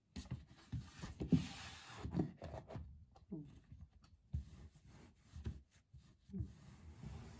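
Hand rubbing and pressing a carpet tile down onto the floor: irregular scuffing of fabric with soft bumps.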